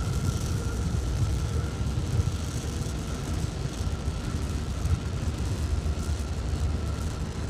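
Starship SN11's three Raptor rocket engines firing during ascent: a steady, low rumbling noise.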